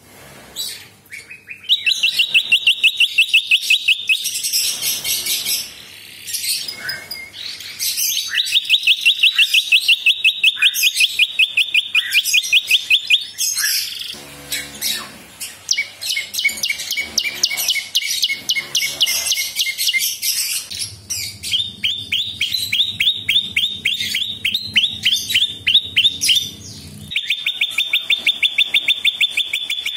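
Caged prinia (prenjak) singing loud, fast trills of sharply repeated notes, each bout lasting several seconds, with short breaks between bouts.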